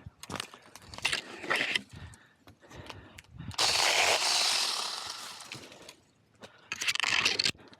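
Small cordless electric chainsaw cutting branches in two bursts, a longer one that starts about three and a half seconds in and dies away, and a short one near the end, after a stretch of crackling twigs and leaves.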